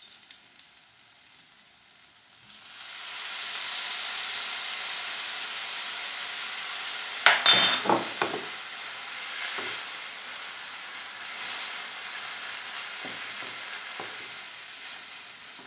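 Fried noodles sizzling in a hot pan; the sizzle swells up about two and a half seconds in as soy sauce is poured in. Midway a wooden spatula clatters sharply against the pan several times, the loudest sound here, and then the noodles are stirred and tossed with a few lighter knocks.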